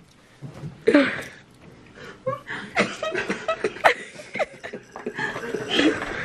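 Laughter and chuckling, in short broken bursts, with a few scattered words mixed in.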